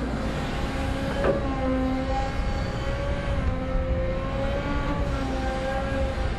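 Cat 320F hydraulic excavator digging: its diesel engine running under load with a steady hydraulic whine that wavers slightly in pitch, and a single short knock a little over a second in.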